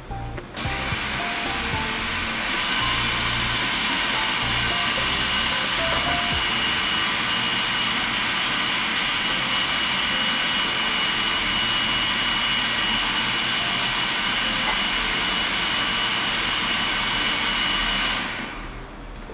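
Electric food processor running, chopping olives into a ricotta pâté base. It starts about half a second in, comes up to speed over the next two seconds, and runs steadily with a high whine until it winds down near the end.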